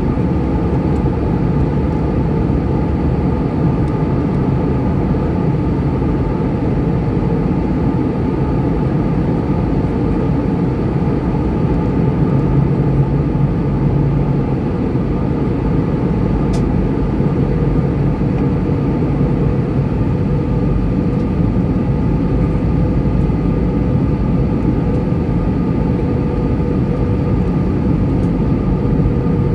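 Steady in-flight cabin noise of an Airbus A320-214, heard from a window seat over the wing: the drone of its CFM56-5B turbofan engines mixed with the rush of airflow, with a few steady hums in it. A faint tick about sixteen seconds in.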